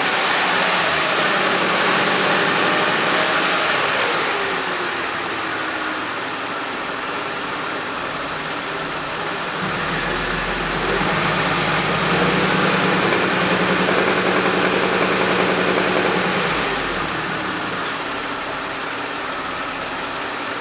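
2010 Audi A6's supercharged V6 running and being revved, its speed rising and falling in a few swells, with a knock the owner takes for rod knock from worn rod bearings.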